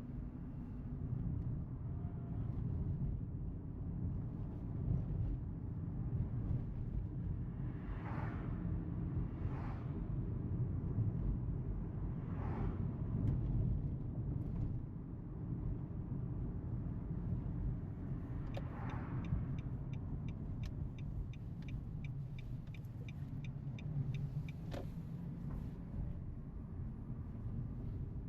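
Nissan Note e-Power Nismo S on the move, a steady low rumble of driving and road noise with a few brief swooshes. About two-thirds of the way through comes a run of quick, evenly spaced ticks, about three a second, lasting several seconds.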